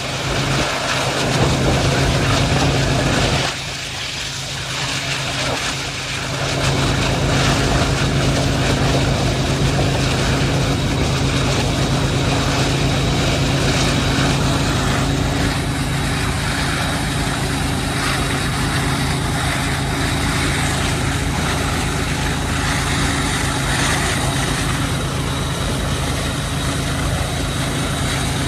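Diesel freight locomotives running under load as a long loaded train climbs a grade: a steady, low engine drone, briefly quieter a few seconds in.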